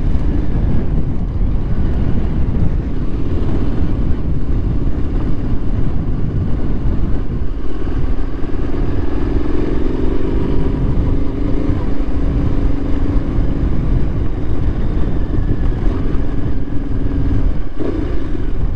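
Yamaha Ténéré 700's parallel-twin engine running at low speed over a rough dirt track, with a heavy low rumble. From about halfway through, a steadier engine drone comes up and rises slightly in pitch.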